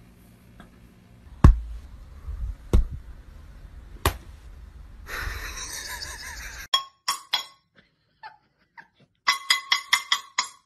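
A few sharp, separate knocks in the first half. Near the end comes a quick run of metallic clinks with a ringing tone, about five a second: a small hand cymbal being struck.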